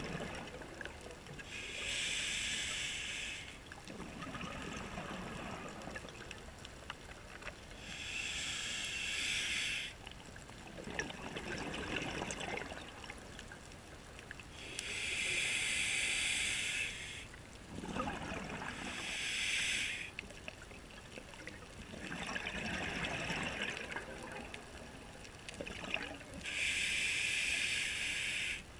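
A scuba diver's breathing through a regulator: soft inhalations alternating with loud bursts of exhaled bubbles, about every four to six seconds.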